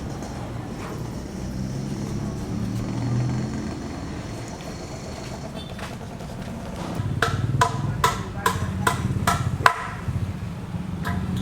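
A steady low rumble, and in the second half a run of about seven sharp knocks with a short ring, roughly two a second.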